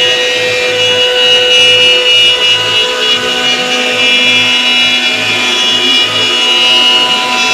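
CNC router spindle running steadily while cutting wood, a high whine over the noise of the cut, with a low pulsing a couple of times a second.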